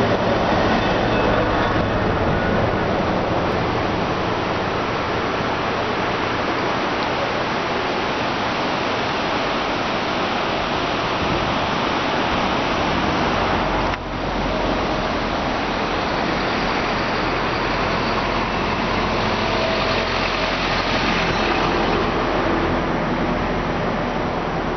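Steady rushing noise with no clear pitch, with a brief dip about fourteen seconds in.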